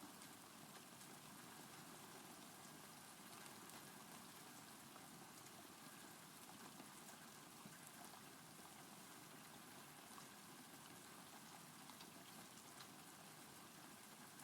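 Faint, steady rain falling, an even hiss with scattered drop sounds.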